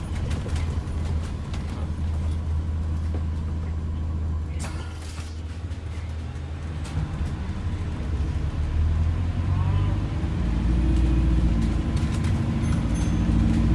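Cabin sound of an ADL Enviro 400H MMC hybrid double-decker bus under way: a steady low rumble from its drivetrain and the road, with a short air hiss about five seconds in. From about ten seconds the drive hum grows louder and steadier in pitch as the bus pulls on.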